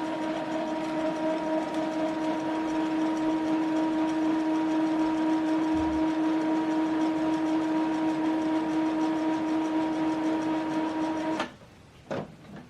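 Epson WorkForce inkjet printer's internal motor running with a steady hum during its maintenance cycle after ink cartridge replacement, stopping suddenly near the end. A short click follows.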